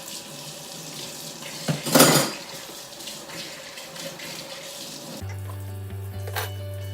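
Kitchen tap running into a sink while dishes are washed, with one loud clatter about two seconds in. A little after five seconds the water cuts off and background music with steady tones takes over.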